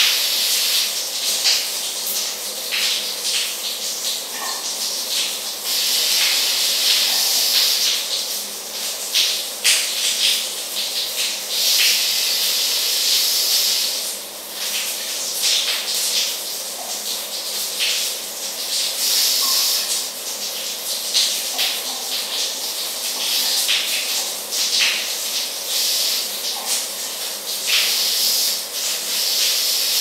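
Shower running: a steady hiss of water spray, with many brief splashes and an unevenly rising and falling level.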